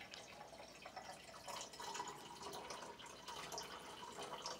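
Water being poured from a small cup into a glass tumbler, faintly trickling and dripping. The trickle gets fuller about a second and a half in.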